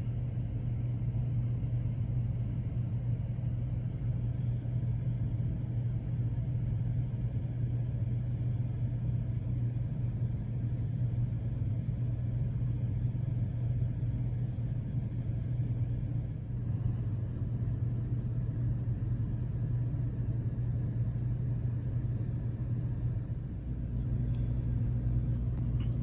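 13.5K BTU Dometic rooftop air conditioner running with a steady low hum, its fan alone while the thermostat has the compressor off. Near the end the sound dips for a moment and comes back fuller with an added higher hum as the compressor kicks back on.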